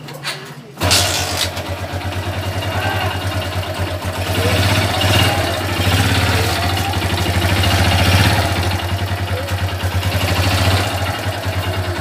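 Motorcycle kick-started: a few clicks from the kick lever, then about a second in the engine catches and runs, its revs rising and falling a few times. It starts normally because the hidden anti-theft kill switch is switched off.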